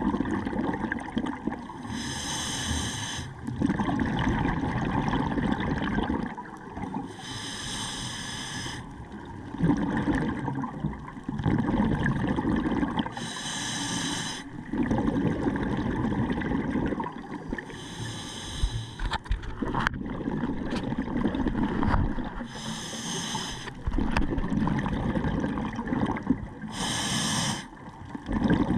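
Scuba diver breathing through a regulator underwater: six inhalations, about one every 4 to 5 seconds, each a hiss lasting about a second, with the low bubbling of exhaled air between them.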